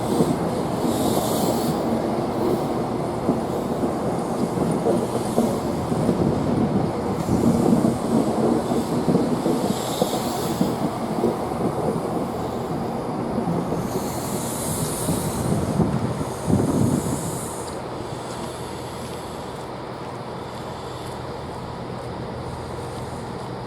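Freight train rolling past, its wagons rumbling and clattering over the rails, with several brief high-pitched wheel squeals. The noise drops away about two-thirds of the way through as the end of the train passes.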